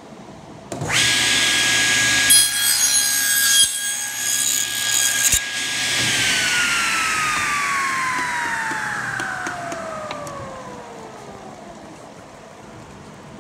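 Table saw switched on, its blade cutting through wood for about three seconds to clear the waste from a bridle-joint tenon. The saw is then switched off and its whine falls steadily in pitch as the blade coasts to a stop.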